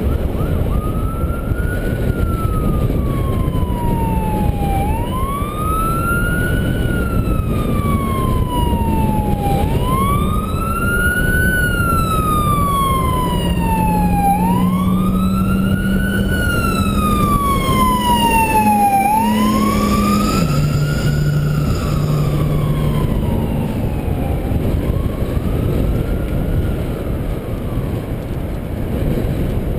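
Emergency vehicle siren wailing, its pitch slowly rising and falling about every five seconds, about four times, then fading near the end. Wind rumbles on the microphone throughout.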